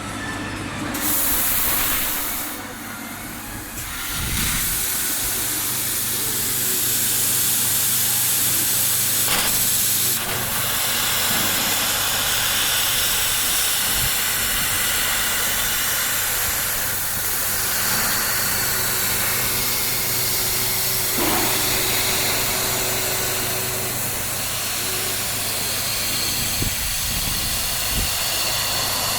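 Mixed CO2 laser cutting machine cutting stainless steel: a loud, steady hiss of assist gas over a low machine hum, stepping up about four seconds in.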